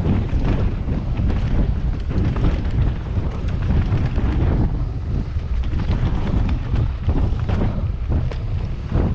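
Wind buffeting the microphone of a camera on a moving mountain bike, with frequent small rattles and knocks from the bike over rough ground.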